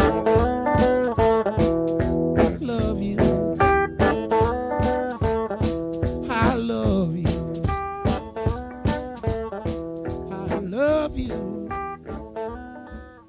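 Electric blues band playing an instrumental stretch: guitar lines with bent notes over a steady drum beat, fading toward the end.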